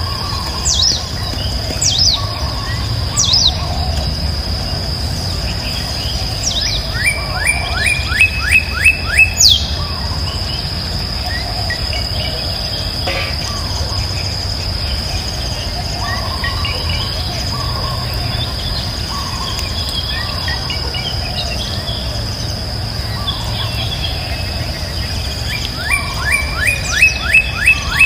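Wild birds calling: sharp downward whistles repeating about once a second early on, and twice a loud run of seven or eight quick falling notes, over a steady high-pitched insect drone and a low rumble.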